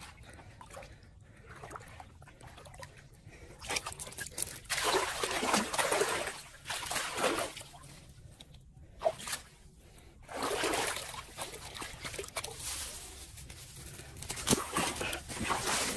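Muddy water rushing and splashing through a hole in an earth bank, swelling in surges that come and go.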